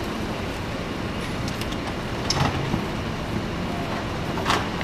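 Steady road-traffic noise, with two short rustles of plastic sheeting being unfolded, about two and a half and four and a half seconds in.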